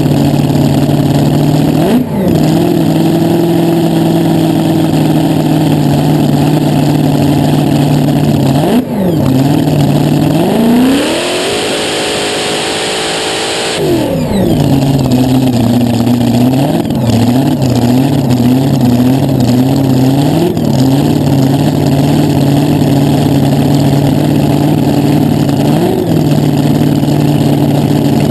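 Supercharged V8 of a front-engine dragster, heard from the cockpit, idling with short throttle blips, then revving up and held high for about three seconds during a burnout before dropping back to idle. Several more quick blips follow as the car is brought up to stage.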